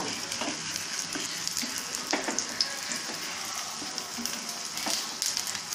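Oil sizzling under a grated-potato pancake (aloo cheela) shallow-frying in a pan: a steady hiss with scattered small crackles.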